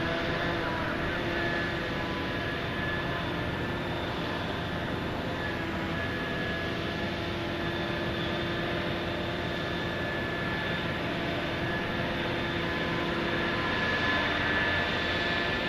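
Heavy diesel machinery running steadily, with several steady whining tones over a broad engine noise: the Liebherr P995 backhoe dredger's engine and hydraulics at work.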